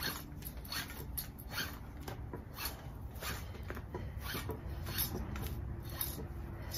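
Rope being pulled hand over hand through a 6:1 pulley block, giving a string of short, irregular rubbing swishes as the line slides through the sheaves.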